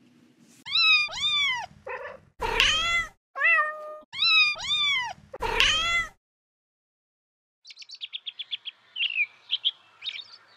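A domestic cat meowing about seven times in quick succession, each call rising and then falling in pitch. After a short pause, a bird starts chirping rapidly and more quietly near the end.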